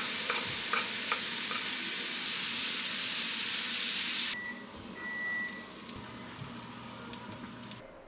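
A steady hiss with a few light clicks in the first two seconds; it drops to a softer hiss about four seconds in and cuts off near the end.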